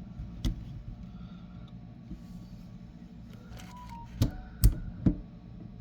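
A few sharp clicks and knocks from faucet spout parts and a plastic ring being handled and slid into place, loudest a little over four and a half seconds in, over a low steady hum.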